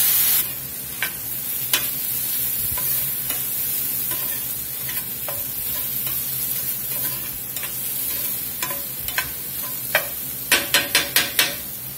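Onions and mushrooms sizzling in a hot cast iron skillet. A loud hiss from Worcestershire sauce hitting the pan cuts off about half a second in, then steady frying as a spatula stirs and scrapes through the pan. Near the end comes a quick run of about six sharp knocks of the utensil against the skillet.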